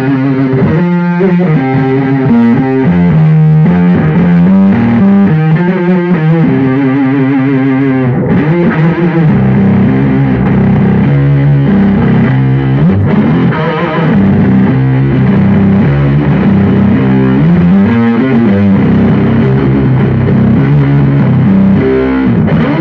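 Electric guitar played loudly through a 200-watt amp with a Hoof Fuzz and a Pitchfork pitch-shifter pedal, giving a thick fuzzed tone over a run of continuous riffs and low notes.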